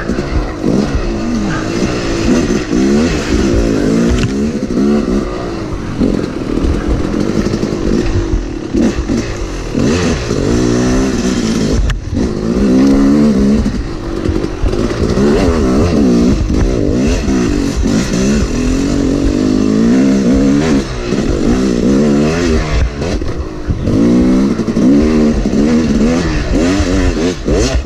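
Yamaha YZ250 two-stroke dirt bike engine ridden along a rough trail, its pitch rising and falling continuously as the throttle is opened and closed, with a couple of brief lulls when it is shut off.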